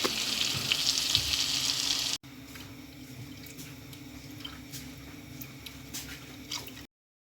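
Milk poured into a pot of hot butter and flour, hissing and sizzling. It cuts off suddenly about two seconds in, leaving a faint stretch with a few light clicks before the sound drops out entirely near the end.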